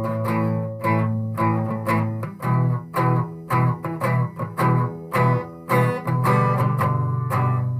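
Acoustic guitar played solo in a steady rhythm of chord strokes. Through the middle the chords are cut short and damped between strokes, and near the end they ring on more fully.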